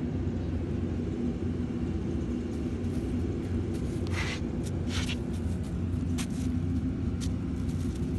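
A steady low mechanical rumble, with a few short hissing noises between about four and seven seconds in.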